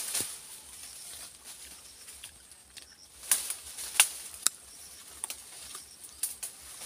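Guava-tree branches and leaves rustling as someone climbs through them, with a scattering of sharp twig snaps and cracks, the loudest a few in quick succession near the middle.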